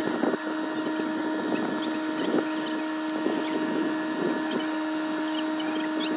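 Small motor running with a steady hum.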